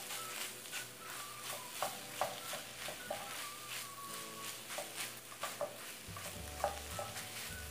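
Silicone spatula stirring and scraping soft scrambled eggs around a nonstick frying pan, in irregular strokes and light taps over a faint sizzle.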